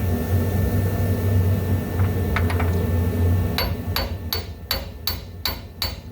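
Hammer striking metal about three times a second, each blow ringing, during front suspension installation on a 1972 Dodge Challenger. The blows come after a few light clicks over a steady low hum.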